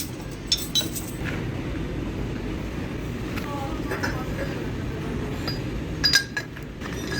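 Sharp metallic clinks of metal parts or tools knocking together: two just after the start and a cluster about six seconds in, over a steady low hum.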